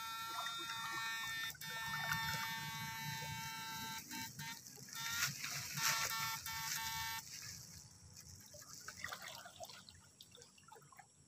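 Electrofishing shocker giving off a steady high-pitched electronic whine, broken by a few short gaps, that cuts off about seven seconds in. Water sloshes and trickles underneath.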